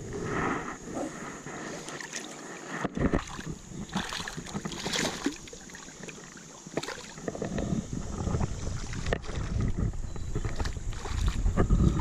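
Shallow river water splashing and sloshing around wading legs and hands as a smallmouth bass is handled and let go at the surface. Near the end, a hooked fish splashes at the surface.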